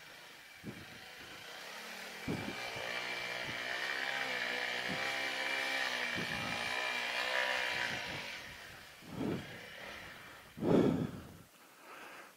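Honda CRF300L's single-cylinder four-stroke engine running under load with wavering revs as the bike wades through a deep water crossing, with a steady hiss of water over it. A few short, dull thumps follow near the end.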